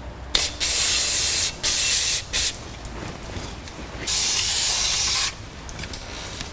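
Aerosol can of brake cleaner spraying onto a brake rotor in four bursts: a long one, two short ones, then another long one starting about four seconds in.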